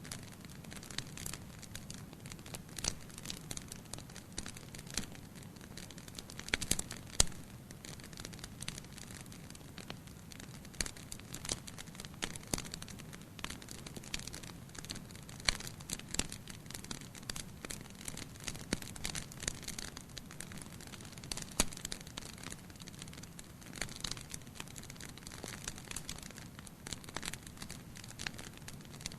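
Wood fire crackling: irregular sharp pops and snaps over a steady low hiss, with a few louder pops scattered through.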